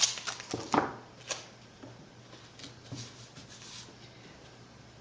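Hands taping down and smoothing the fabric edges of a blanket layer: a cluster of short clicks, rustles and tape sounds in the first second and a half, then faint handling.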